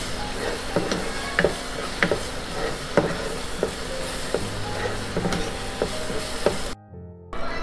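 Plastic spatula stirring and scraping a thick, sizzling milk-cake mixture of reduced milk, sugar and ghee in a nonstick pan: a steady frying sizzle with a short scrape at each stroke. The mixture is darkening and coming away from the sides of the pan, a sign it is almost done. The sound cuts off briefly near the end.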